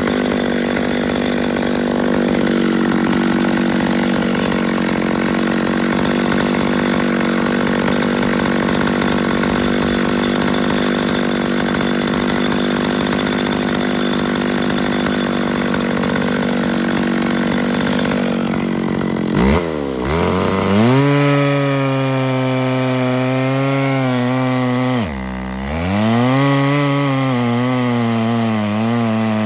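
McCulloch two-stroke chainsaw running at steady high revs, then cutting into a log about two-thirds through, its pitch lower and wavering under load, with one sharp drop near the end that recovers.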